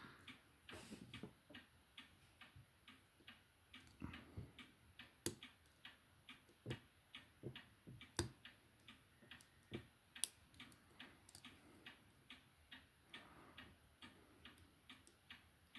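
Faint, irregular clicking of lock picks working the pin tumblers of an Ace padlock, about two or three light clicks a second with a few sharper ones, as pins are set one by one out of a false set.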